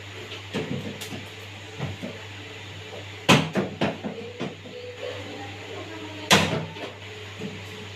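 Plastic parts of an RO water purifier being handled during repair: a series of irregular knocks and clacks, two of them louder, about a third of the way in and near the end, over a steady low hum.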